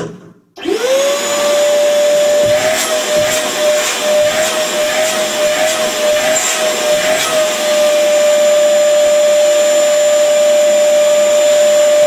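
ZUBR PU-15-1200 M1 wet/dry shop vacuum's 1200 W motor switched on about half a second in. It spins up quickly to a steady high whine with rushing air. A few light clicks come through the middle.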